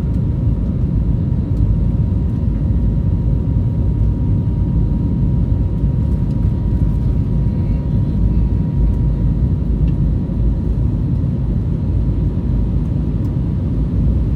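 Jet airliner cabin noise heard from a window seat: the steady low rumble of the engines and rushing air, with a faint steady high tone over it.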